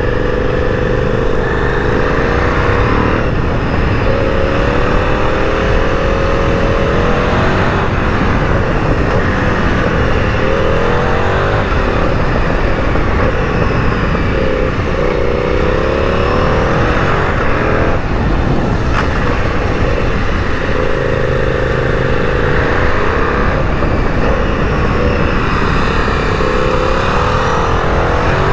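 KTM 990 Super Duke's V-twin engine, heard from on the bike, repeatedly climbing in pitch under acceleration and dropping back at gear changes and for the bends, under steady wind rush on the microphone. There is a single sharp click a little past the middle.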